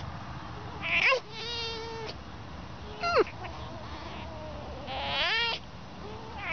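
Red fox making high, squeaky whining calls. A rising whine about a second in runs into a held note, a sharp falling squeak comes near three seconds, and another rising whine follows a little past five seconds.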